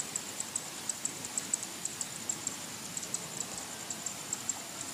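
Insect chirping: short, high-pitched chirps repeating steadily at about six a second over faint outdoor hiss.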